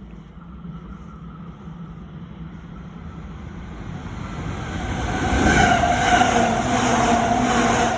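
A JR Chuo Line electric train running close by, its wheel rumble and steady whine growing louder, loudest from about five seconds in.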